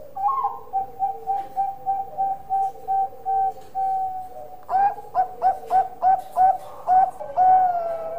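Zebra dove (Bangkok-line perkutut) singing its cooing song: a run of short, evenly spaced coos at about three a second, then a second phrase of sharper notes that each rise at the start, ending on one longer drawn-out coo.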